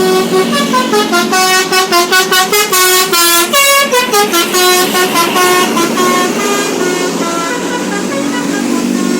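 Basuri telolet bus horn playing a quick tune of short notes that jump up and down in pitch. About six seconds in, the tune ends and a lower steady tone carries on.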